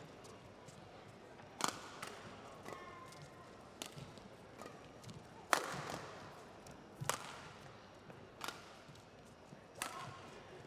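Badminton rackets striking a feather shuttlecock in a doubles rally: about six sharp cracks, roughly one every second and a half, the loudest a hard hit just past the middle.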